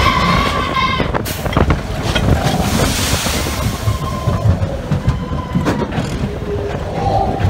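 Matterhorn Bobsleds roller coaster car running along its tubular steel track: a steady low rumble with clicks and rattles from the wheels, and wind on the microphone. A held high-pitched tone sounds over the start and stops about a second in.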